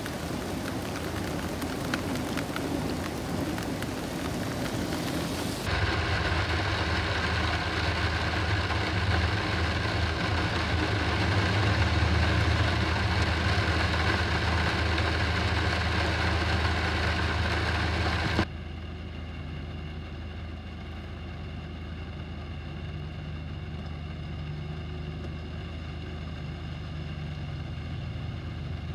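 Heavy rain falling on a paved street, with an even hiss, for the first few seconds. Then, after abrupt cuts, the steady hum of a vehicle's engine heard from inside while riding on wet roads, louder until about two-thirds of the way through and quieter after that.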